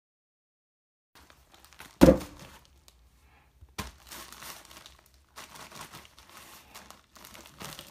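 Crinkling and rustling of handled packaging, starting about a second in, with a sharp knock about two seconds in, another near four seconds, and a loud one at the end.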